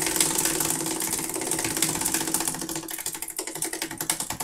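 Prize wheel spinning, its pointer clicking rapidly against the pegs, the clicks slowing and spreading apart near the end as the wheel winds down.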